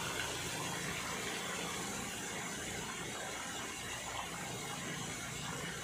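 Pool fountain jet pouring steadily into the swimming pool, a continuous splashing rush of water.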